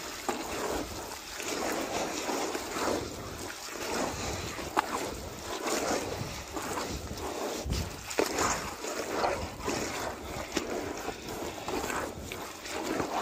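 Wet concrete mix being squeezed and kneaded by bare hands in a plastic tub: irregular wet squelching and sloshing, with the odd click of the tub.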